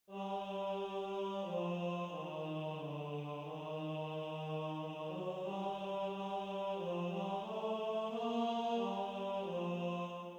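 Computer-synthesized singing voice from Sibelius notation-software playback, one voice alone singing the slow opening melody of a round, stepping from held note to held note.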